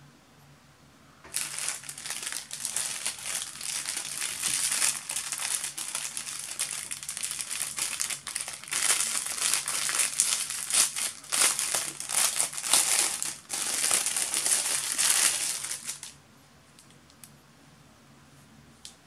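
Clear plastic packaging bag crinkling as it is handled and pulled open by hand. The crinkling starts about a second in, runs for about fifteen seconds, then stops.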